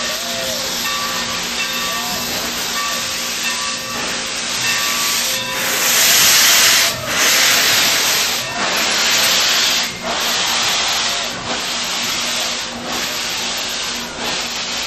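Santa Fe 3751, a 4-8-4 steam locomotive, hissing steam. The hiss is loudest about six to eight seconds in, then comes in surges with short breaks about every second and a half.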